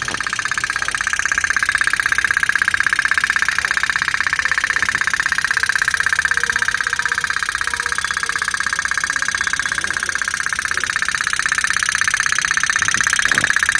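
Small motor of a homemade toy boat running steadily, a high buzzing whine with a rapid even pulse.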